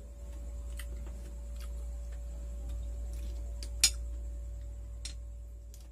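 Small clicks and clinks of cooked auger shells being picked out of a bowl by hand, with one sharper click about four seconds in, over a steady low hum.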